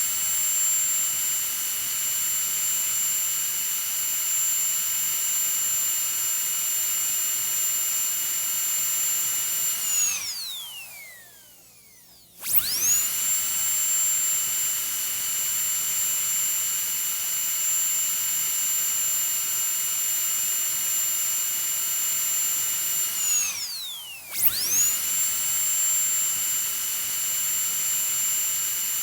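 Dentist's drill running with a steady high-pitched whine. About ten seconds in it winds down with a falling pitch and stops, then spins back up after a two-second pause. It winds down and restarts once more about a second later, a few seconds before the end.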